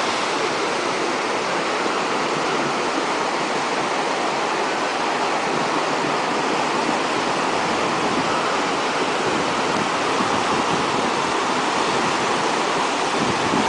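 Flash-flood water rushing steadily over rocks.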